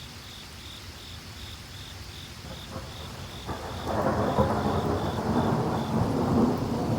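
Thunder rumbling after a lightning flash, over steady rain. The sound gets suddenly louder about three and a half seconds in and stays loud.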